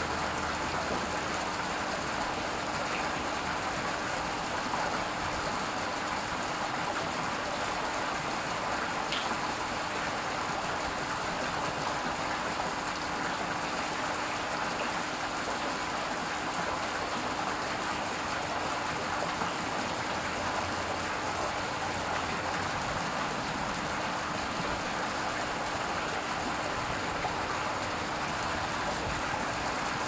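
Small garden fountain's water splashing and trickling steadily into its basin, a close, even patter like light rain, with a faint steady hum underneath.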